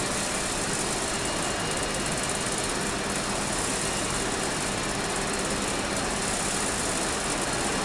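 Steady, even noise of an underground rapid-transit station as a MARTA train approaches through the tunnel, with a faint steady hum underneath.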